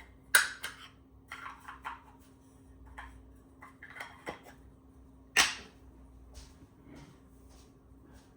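Camera gear being handled: a string of sharp clicks and light clatter of small hard parts, with louder knocks just after the start and about five seconds in.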